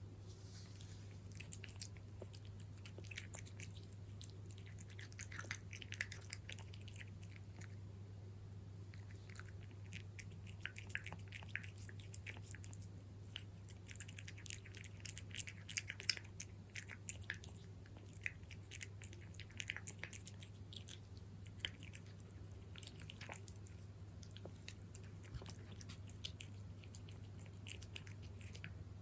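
A cat chewing Kalkan fish-and-meat mix cat food: quick crunches and mouth clicks in clusters every few seconds, over a low steady hum.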